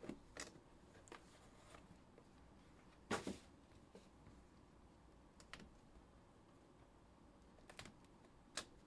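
Faint handling of a cardboard trading-card box being opened: scattered light scrapes and taps, with one louder knock about three seconds in.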